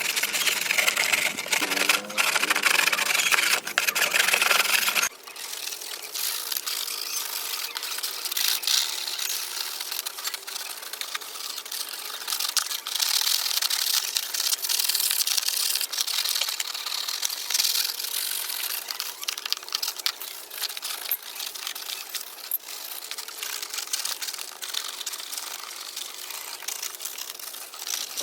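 Abrasive rubbing, as in hand sanding, which stops about five seconds in. A quieter, thinner scratching hiss with small clicks follows and keeps going.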